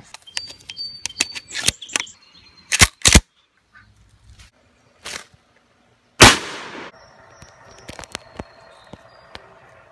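Handling noise from a phone being moved about: a run of clicks and knocks, two loud bumps about three seconds in, and one very loud bump and rustle about six seconds in that dies away over most of a second, then a few light taps.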